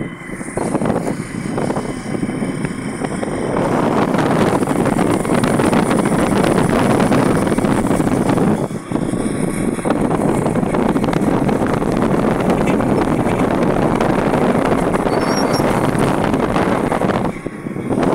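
Loud wind rush buffeting the microphone of a moving open vehicle, with the vehicle's engine running underneath. The rush dips briefly about nine seconds in and again near the end.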